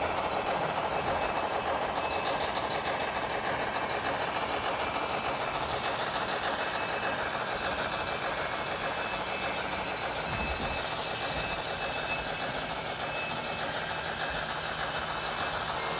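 N scale model of a Southern Pacific Mk-11 2-8-2 steam locomotive running with its freight train, a steady noisy rumble that holds even throughout.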